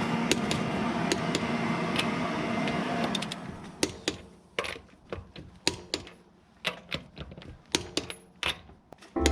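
Background music fading out over the first three seconds, then a string of sharp, irregular clicks and taps, roughly one every half second to a second.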